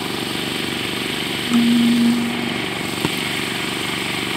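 A small engine, apparently the portable generator powering the floodlights, running steadily. A steady low tone is held for about a second, about a second and a half in, and a single sharp smack, typical of a volleyball being struck, comes about three seconds in.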